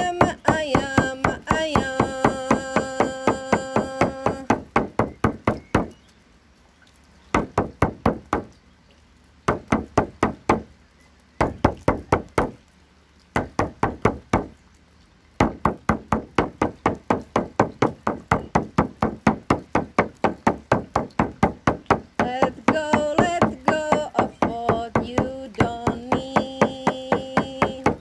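Shamanic frame drum beaten in a steady pulse of about three beats a second, stopping briefly a few times in the middle. A woman's voice sings long held notes over the drumming for the first few seconds and again near the end.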